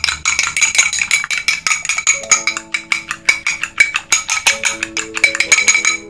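A metal fork beating a raw egg in a small ceramic bowl: rapid clicking strokes against the bowl. Background music plays, with held notes coming in about two seconds in.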